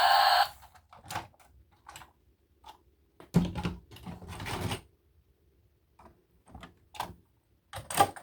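Background music cuts off about half a second in. Then come irregular clicks, taps and rustles of toy packaging and plastic toy vehicles being handled, with a longer stretch of rustling a little past the middle.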